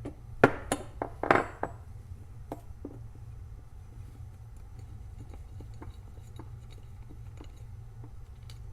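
Metal parts being handled on a workbench: a cluster of clinks and knocks in the first two seconds, then occasional light taps over a steady low hum.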